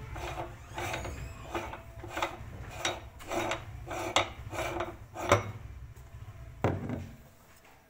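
Hand-cranked metal meat grinder crushing Orbeez water beads: a steady low grinding rumble with rhythmic rasping scrapes about twice a second. Near the end comes a single sharp knock, and then the grinding stops.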